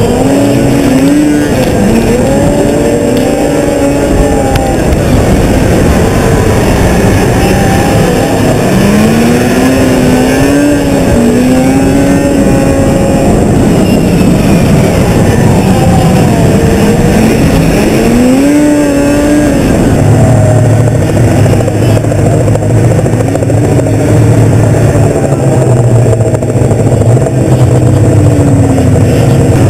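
Racing snowmobile's two-stroke engine heard on board, loud, its pitch rising and falling again and again as the throttle is worked through the course, over a constant rush of noise. About two-thirds in, a steady low drone joins underneath.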